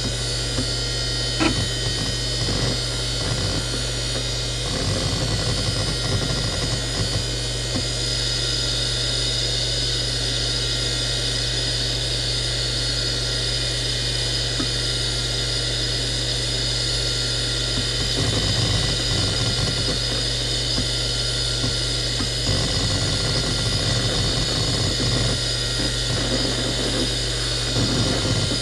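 Seagate Barracuda 18XL ST318436LW 18 GB SCSI hard drive spinning at 7,200 RPM with a steady ball-bearing whine, its heads seeking in irregular patches of soft chatter as the operating system loads from it at boot. There is one sharp click about a second and a half in.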